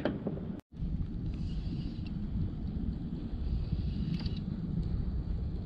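Wind buffeting the action camera's microphone on open water, a steady low rumble, with a few faint clicks. The sound cuts out briefly about half a second in.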